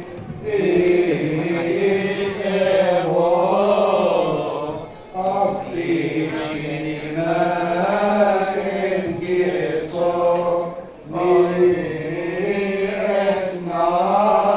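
Coptic Orthodox liturgical chant sung by voices in long phrases, the pitch winding up and down, with brief breaks about five and eleven seconds in.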